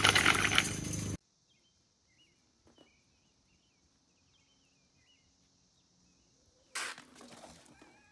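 Loud outdoor noise that cuts off abruptly about a second in, leaving near silence with faint bird chirps. Near the end, a sudden burst of noise that fades over about a second.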